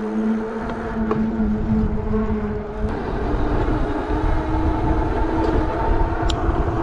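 Engwe EP-2 Pro e-bike's 750 W electric hub motor whining steadily under power at speed, over a loud rumble of fat tyres and wind. About three seconds in, the whine jumps to a higher pitch as the speed rises.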